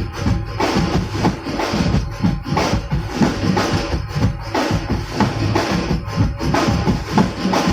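Loud amplified music with a steady, driving drum beat, played over a large PA sound system during a sound check.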